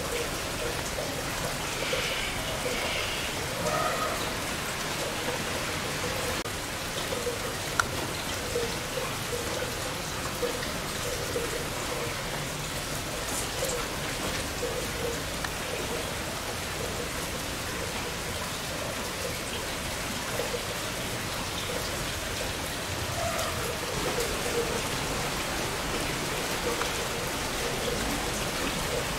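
Steady rain falling on surfaces.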